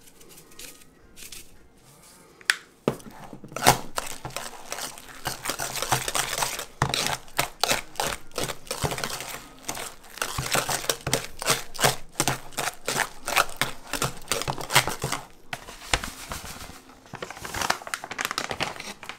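A wire balloon whisk beating mashed potatoes in a stainless steel bowl: rapid, uneven squishing and scraping strokes that start about three seconds in, stop briefly near the end, then resume.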